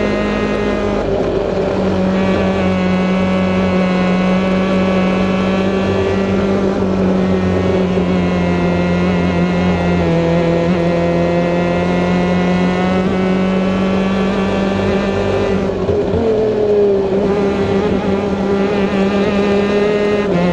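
Stock Honda superkart two-stroke racing engines running hard at high revs on track, a loud buzzing note that drifts slowly down and up in pitch through the corners, with a brief wobble and rise about sixteen seconds in.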